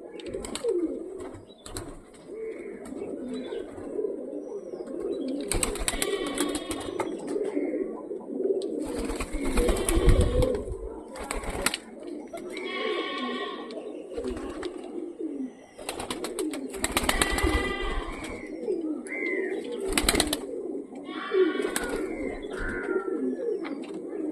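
Many pigeons cooing steadily, with several short, louder bursts of noise and a few higher calls in between.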